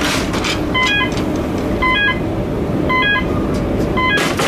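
Ferry gangway warning beeper sounding a short double chirp about once a second while the gangway is lowered onto the pier, over a low steady rumble, with sharp clicks near the start and near the end.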